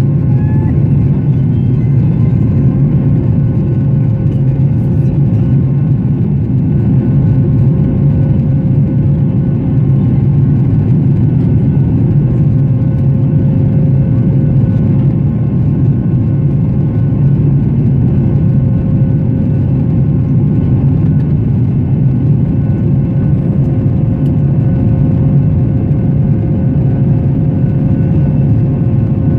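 Steady cabin noise of a Boeing 737-800 climbing after takeoff, heard from a window seat over the wing: its CFM56-7B turbofan engines at climb thrust and the rush of air, a deep even rumble with a few faint steady hums above it. A further faint tone joins about 24 seconds in.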